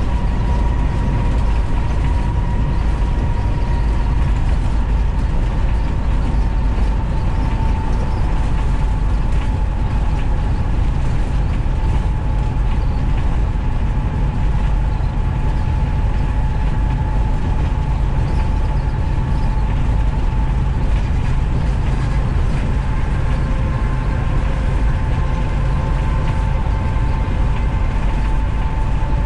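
Short school bus cruising at highway speed, heard from inside the cabin: a steady low engine and road rumble with a thin whine that wavers slightly in pitch.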